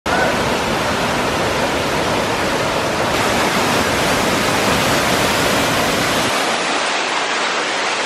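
Waterfall plunging onto boulders: a steady, loud rush of falling water. Its deep rumble drops away about six seconds in.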